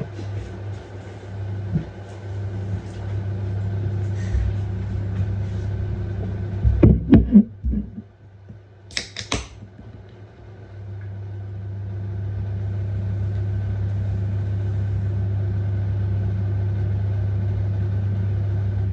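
LG F1222TD washing machine running with a steady low hum. A clatter of knocks comes about seven seconds in. The hum then dies away and builds back up to a steady level a few seconds later.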